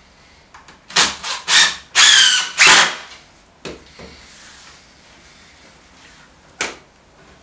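Cordless drill driving screws into timber: about five short runs of the motor in quick succession, the longest run dropping in pitch as the screw bites and seats. A few light knocks follow, then one sharp wooden knock near the end.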